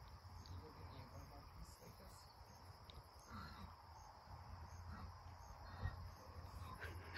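Faint crickets chirping in a steady, even rhythm, over a low steady rumble.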